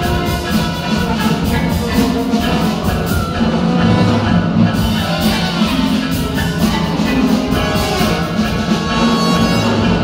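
Orchestra playing a ballet score, dense and driving, with a quick, even pulse of short strokes through most of the passage.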